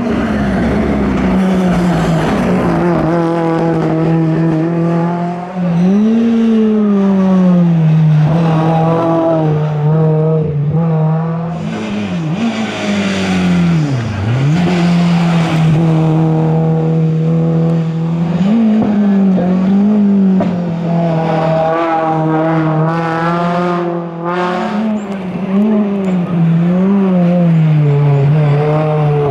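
Race car engine held at steady high revs, with repeated short revving blips and one sharp drop and recovery about fourteen seconds in.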